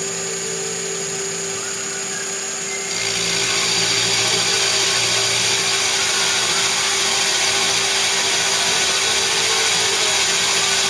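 Milling machine spindle running as a carbide four-flute end mill slowly cuts a pocket in a cast iron slide, a steady machining noise with a constant tone. About three seconds in the noise gets louder and hissier, then holds steady.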